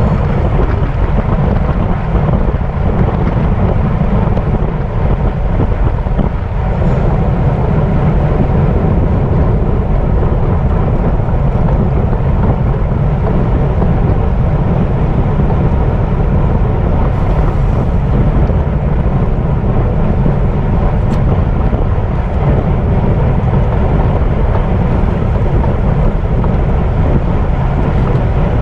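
Steady, loud wind rush on the microphone of a camera riding along with a bicycle racer, heaviest in the low end.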